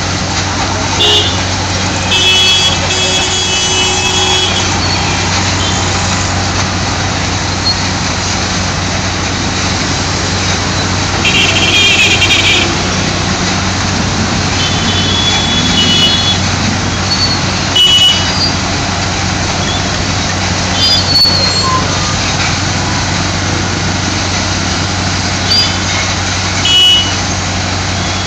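Truck-mounted spray-injection pothole-patching machine running with a steady low engine hum and the continuous loud hiss of its hand-held spray lance jetting into the pothole. Short horn beeps from passing traffic sound repeatedly over it.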